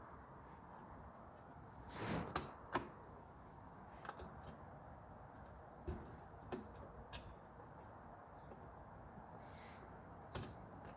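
Scattered clicks and knocks from a 1939 Royal Quiet De Luxe typewriter's outer body shell being worked onto its frame: a short cluster of knocks about two seconds in, then single clicks spaced a second or more apart, the last near the end.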